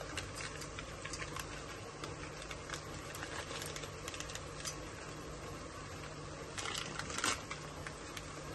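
Light metallic clicks and scrapes of a cooking utensil against a pot while biryani masala is stirred in, over a steady low hum, with a denser, louder run of clicks about seven seconds in.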